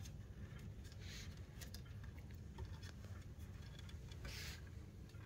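Puppy's claws and paws lightly clicking and pattering on a wooden shelf as it walks about, a few scattered soft ticks, with two brief soft hisses, about a second in and near the end, over a low steady room hum.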